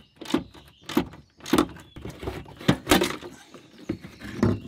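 A run of irregular hollow plastic knocks and clunks, about two a second, as the old plastic windshield washer fluid reservoir is wrestled loose by hand.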